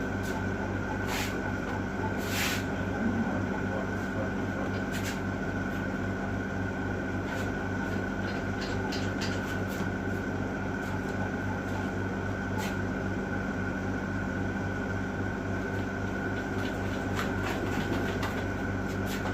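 Steady machine hum, like a fan or air-conditioning unit running, with a few short clicks and light knocks scattered through.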